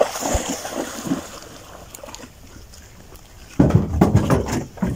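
A dog splashing as it runs into shallow river water. About three and a half seconds in, louder low buffeting and knocks come in suddenly.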